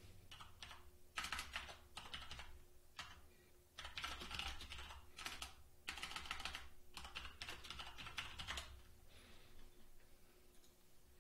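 Typing on a computer keyboard: several short runs of rapid key clicks with brief pauses between them, over a faint steady hum.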